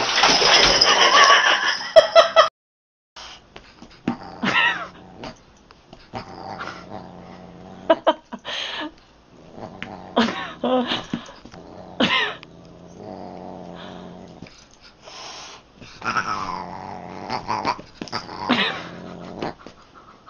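A cat and a dog play-fighting. The first couple of seconds are a loud, noisy scuffle that cuts off suddenly. After a short gap come a run of separate growls and drawn-out yowls, several of them falling in pitch.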